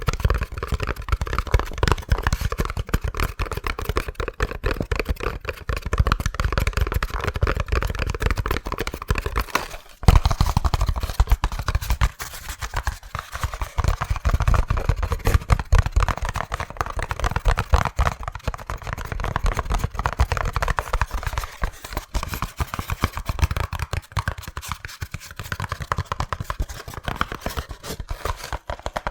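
Fast, aggressive hand tapping on an object: a dense run of rapid taps, with a short break about ten seconds in before it picks up again.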